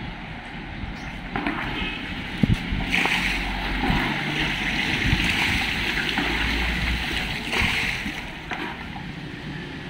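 Shallow water splashing and sloshing as people wade through it and grab for tilapia by hand, loudest from about three to eight seconds in, with a few sharp slaps of water before that.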